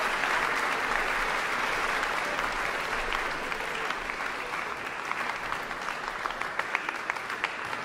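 Audience applauding, the dense clapping dying down in the second half into scattered separate claps.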